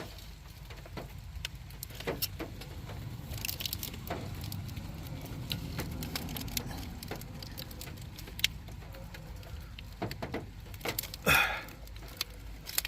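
Scattered light clicks, knocks and rattles of hands handling wiring and parts in a truck's engine bay, over a low steady background hum, with one louder brief rustle near the end.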